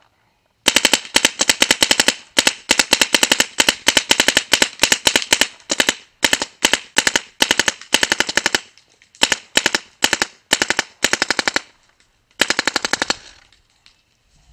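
Dye Assault Matrix (DAM) paintball marker firing on full auto: rapid strings of sharp pops broken by short pauses, stopping near the end.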